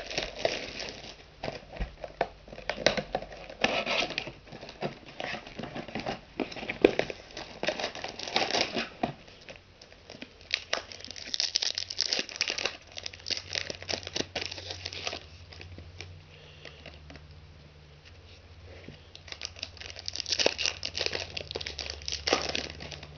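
Crinkling and tearing of plastic and foil wrapping as a trading-card box is unwrapped and its foil card packs are handled and torn open, in close irregular rustles that ease off for a few seconds past the middle.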